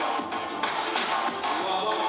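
Instrumental passage of a pop song: backing music with a steady drum beat and no singing.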